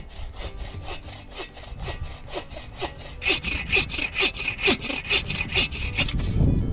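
Bow saw cutting through a fallen conifer trunk, rasping back and forth at about three strokes a second. The strokes get louder and quicker about halfway through and stop as the log is cut through, followed by a dull thump.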